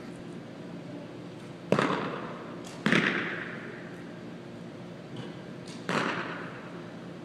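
Three arrows striking archery target butts: three sharp thuds, the first two about a second apart and the third some three seconds later, the second the loudest, each ringing on in the gymnasium's echo.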